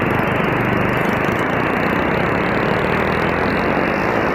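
Motorcycle engine running steadily while riding, mixed with wind rush over the microphone.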